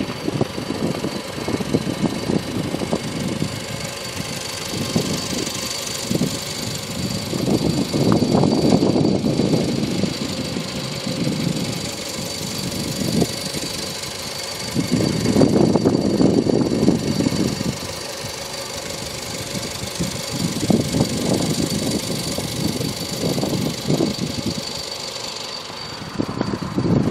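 Mitsubishi Colt's 1.3-litre inline-four engine idling, heard from low down by the rear wheel and under the body, with rough noise that swells twice, about eight and fifteen seconds in.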